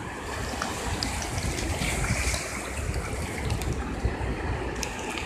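Shallow surf washing in and out over wet sand, a steady rushing wash that swells a little about two seconds in, with wind rumbling on the microphone.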